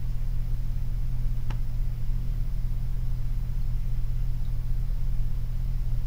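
Steady low hum and hiss of a quiet room played back from a handheld voice recorder, with one faint click about a second and a half in. The hum is what the listeners take for the fish tank's filter and dripping water.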